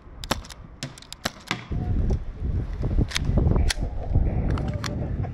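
Suppressed airsoft gas pistol, the Novritsch SSX23, fired as sharp clicks several times in quick succession. About a third of the way in a loud low rumble sets in, with a few more scattered shots over it.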